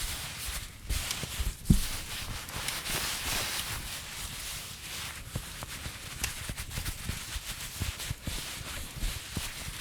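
Fireplace fire crackling: irregular pops and clicks over a soft hiss, with a louder low thump a little under two seconds in.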